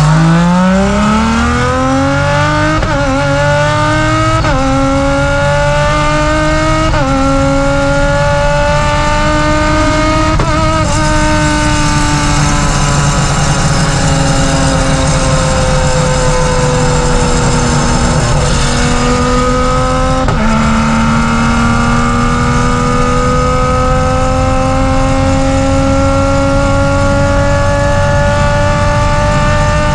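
Race car engine running hard, its pitch climbing and then dropping sharply with quick upshifts about every two seconds. The pitch then sags slowly for several seconds, drops again with another shift, and climbs steadily under load.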